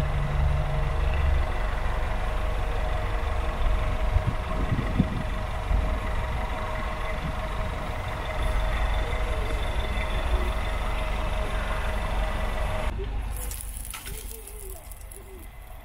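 Car engine idling steadily close by, with a few short sharp knocks about four to six seconds in. Near the end the engine sound drops away and a thinner, hissier sound takes over.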